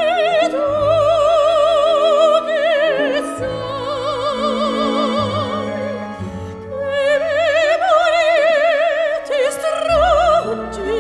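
Operatic singing over orchestral music: a voice holding long notes with wide vibrato, moving to a new pitch every second or two.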